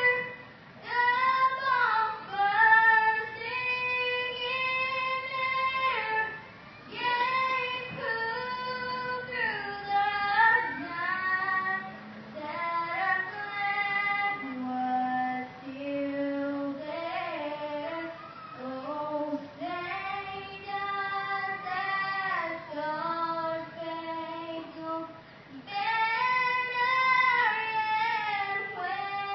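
A young girl singing the national anthem solo, one voice holding long notes and sliding between pitches, with short pauses for breath between phrases.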